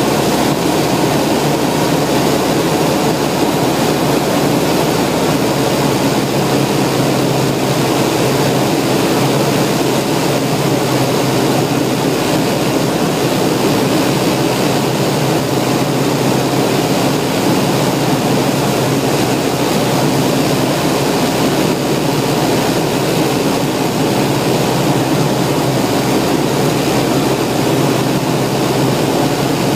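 Propeller aircraft's engine and propeller running steadily, a constant loud drone that holds the same pitch throughout.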